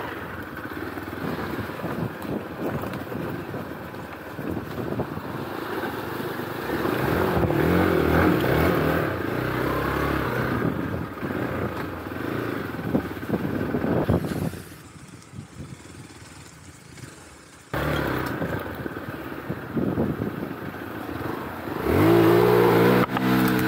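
Hero Xpulse 200 4V's single-cylinder engine running at low trail-riding revs, the pitch rising and falling with the throttle. It drops much quieter for about three seconds a little past the middle, and is revved up, rising in pitch, near the end.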